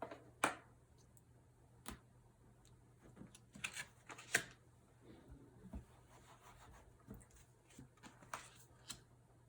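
Dry-erase marker strokes and taps on a whiteboard: a few short scratchy squeaks and clicks, loudest about half a second in and about four seconds in, over a faint steady hum.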